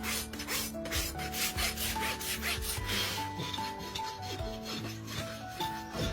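Farrier's rasp filing a horse's hoof in quick repeated strokes, over background music.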